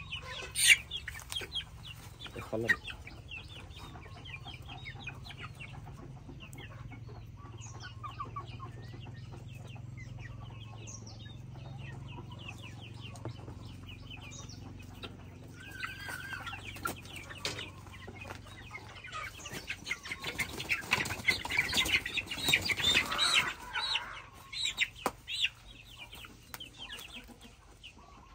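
Young chickens clucking and peeping in quick short calls while being held in the hand, with brief wing flapping near the start. The calls grow louder and denser about two-thirds of the way in.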